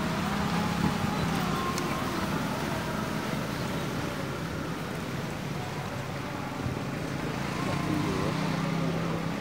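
Steady background noise of road traffic, with a low engine hum swelling near the start and again toward the end.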